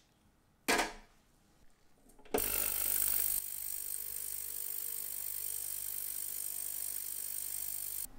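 A click just under a second in, then a Bandelin Sonorex ultrasonic cleaner starts up about two seconds in and runs with a steady high hiss and faint hum, a little louder in its first second. It cuts off suddenly near the end.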